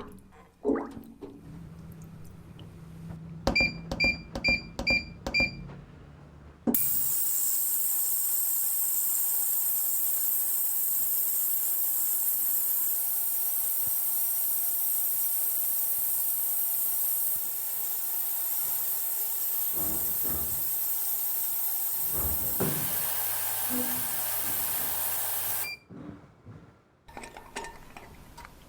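Six quick electronic beeps, then a loud, steady hiss of compressed air for about nineteen seconds that cuts off suddenly.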